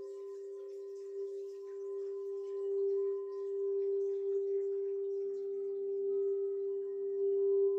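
Singing bowl sounding one steady, sustained tone with fainter ringing overtones above it, growing louder rather than dying away. A second, lower tone joins about five seconds in.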